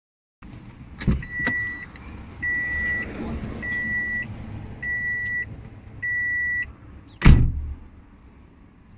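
Electronic warning beeper sounding five steady, high beeps, each about half a second long and a little over a second apart, after a couple of clicks. A single loud thump follows about seven seconds in.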